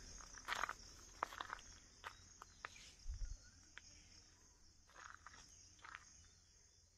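Faint, steady high-pitched chorus of crickets or similar insects, with scattered footstep scuffs.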